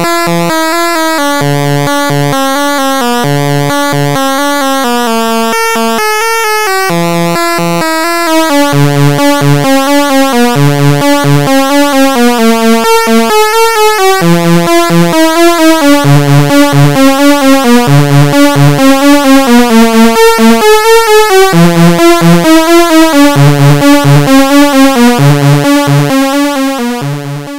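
Behringer Crave analog synthesizer playing a repeating sequenced pattern of notes over a recurring bass note. About eight seconds in a steady pulsing comes in and the music gets louder, then it fades out near the end.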